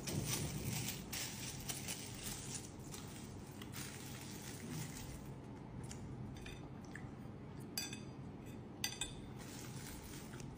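Tabletop handling sounds at a meal: rustling in the first couple of seconds, then a few light clinks and taps on a ceramic plate as the skewers are handled, with two sharper clicks about a second apart past the middle.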